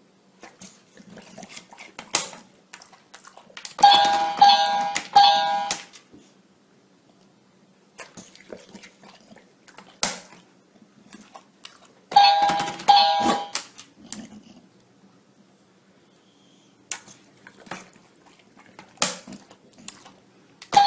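Electronic push-button chime sounding short runs of steady beeping tones: three notes about four seconds in, two about twelve seconds in, and another run beginning at the very end. Sharp clicks and knocks come in between.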